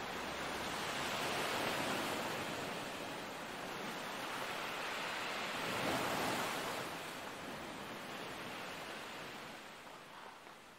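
A steady wash of rushing noise, without clear pitch, swelling and easing slowly and fading near the end.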